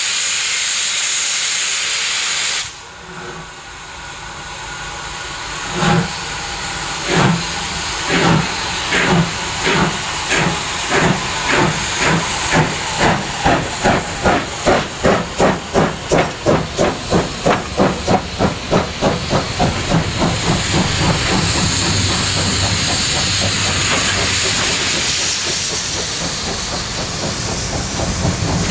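Double-headed steam locomotives (a 15CA and a 25NC) starting a train. A loud hiss of steam cuts off after a couple of seconds. Then exhaust chuffs begin, slow at first and quickening steadily until they run together into a continuous rush of exhaust.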